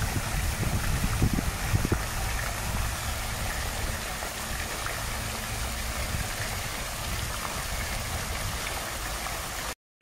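Water of a tiered fountain splashing and falling into its basin, a steady even rush that cuts off abruptly just before the end.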